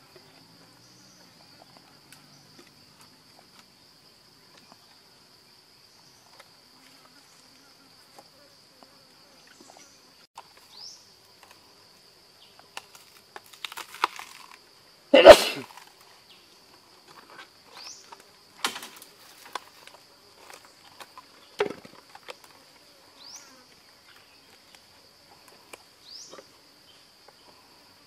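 Insects buzzing steadily at a high pitch, with a few short rising chirps. Against it come handling noises as fresh banana stem is wrapped and pressed: rustles and small knocks, and one loud thump about halfway through.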